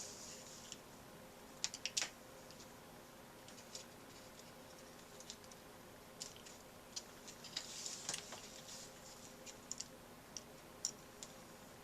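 Faint scattered clicks and light taps of small cardboard model parts being handled and fitted by hand, with short rustles near the start and about eight seconds in.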